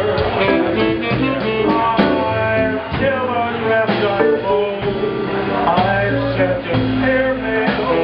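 Live band playing a blues-style number, with guitar over a moving bass line.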